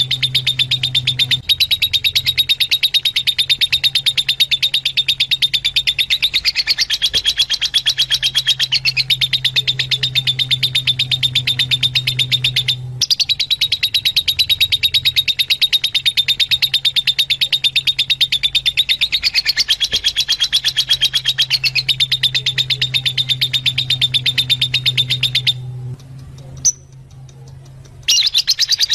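Fischer's lovebirds chattering in a fast, unbroken stream of shrill chirps, the kind of flock sound played to lovebirds to stimulate breeding. The same pattern comes round again every twelve seconds or so, and it breaks off briefly near the end.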